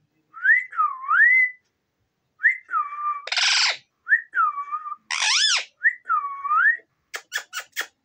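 Indian ringneck parakeet whistling a series of short notes that rise and dip in pitch, with a harsh squawk about three seconds in and a sharp falling call a little after five seconds. A run of about five quick clicks follows near the end.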